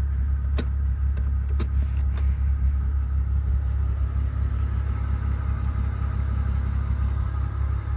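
Mercedes-AMG G65's twin-turbo V12 idling, a steady low rumble heard from inside the cabin, with a couple of light clicks in the first two seconds.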